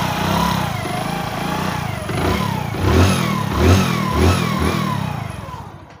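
Hero HF Deluxe motorcycle's single-cylinder engine running, the throttle blipped a few times in the middle, with the sound falling away near the end. The timing chain has just been replaced and the engine runs without the earlier cut-cut-cut timing chain rattle.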